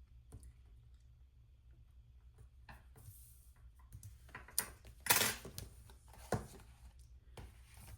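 Hands handling a paper planner and sticker sheets: scattered light taps and clicks, with a louder brief paper rustle about five seconds in.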